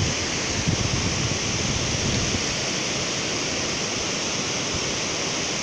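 Steady rushing of water flowing at a dam, with low wind buffeting on the microphone during the first couple of seconds.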